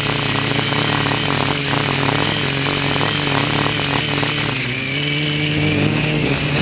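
Quadcopter's NTM Prop Drive 900KV brushless motors spinning 10x4.5 Gemfan propellers, a steady buzzing whir picked up by the onboard GoPro, with a fluttering rasp over the first few seconds. The motor pitch wavers with throttle and dips briefly about five seconds in.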